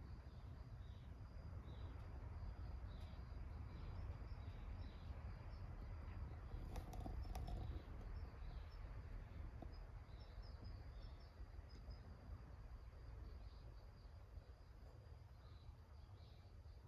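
Faint garden ambience of insects chirping steadily over a low background rumble, with a few light clicks about seven seconds in.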